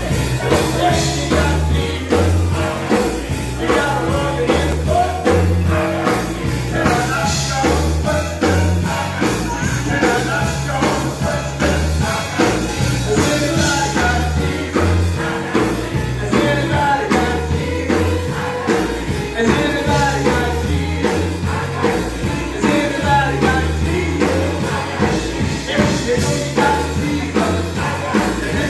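Gospel singing with band accompaniment: voices over a steady beat and a prominent bass line.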